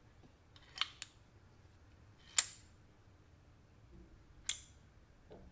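Sharp clicks and taps of hard objects being handled: a quick pair about a second in, the loudest about two and a half seconds in with a short ring, another a couple of seconds later, and a soft knock near the end.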